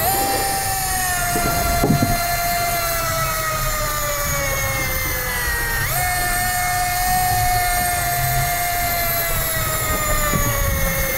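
Electric deep-drop fishing reel winding braided line in against a hooked fish, its motor whining steadily. The pitch slowly falls, then jumps back up about six seconds in.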